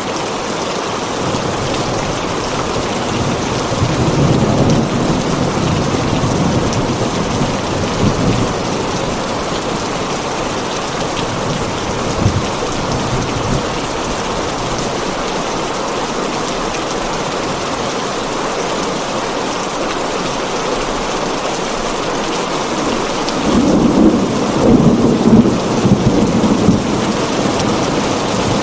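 Heavy rain drumming steadily on a tin roof, with two rolls of thunder: one about four seconds in and a louder one near the end.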